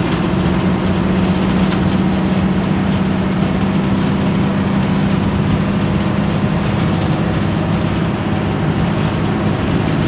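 Bus engine running steadily at speed, with road noise, heard from inside the bus's cab.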